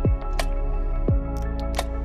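Background music: held tones with deep booms that drop in pitch, two of them about a second apart, and scattered sharp clicks.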